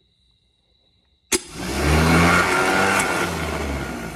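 Rebuilt Fiat-Allis excavator starter motor run on the bench: a sharp click about a second in, then the motor winds up to speed within about a second and keeps spinning with a steady whir. It is working again on its cleaned commutator and new brushes.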